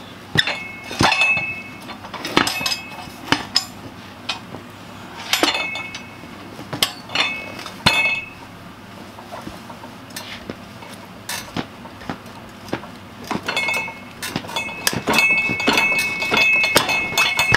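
Irregular metal clanks and clinks from a manual tire changer's bead-breaker lever and the quad wheel rim as the tire bead is forced down. Several of the knocks leave a short metallic ring, with a quicker run of them near the end.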